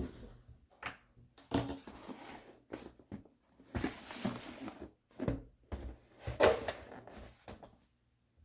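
Packaging being handled and opened during an unboxing: an irregular run of knocks, scrapes and rustles, with a few sharper knocks among them. It stops shortly before the end.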